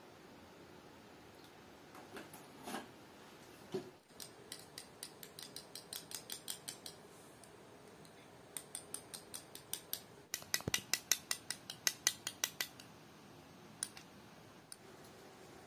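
A metal spoon stirring yogurt in a small glass bowl, clinking against the glass about five or six times a second. The clinking comes in two spells, the second louder, with one low knock in the middle of it.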